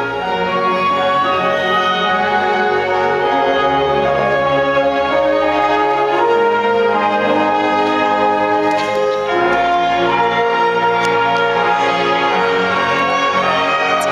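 Youth orchestra playing live, bowed strings and brass together on long sustained chords, shifting to a new chord about nine seconds in.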